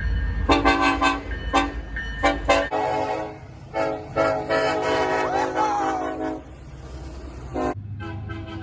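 Multi-note air horn of an EMD diesel locomotive sounded in a pattern: about five quick short toots, then one long blast of about two and a half seconds, then a last short toot near the end, over a low engine rumble in the first part.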